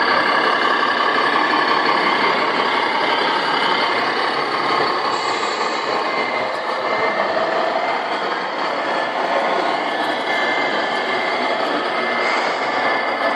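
Electronic sound units in 1:14 scale RC trucks playing recorded diesel truck engine sound through small speakers, with short beeps coming and going in the second half.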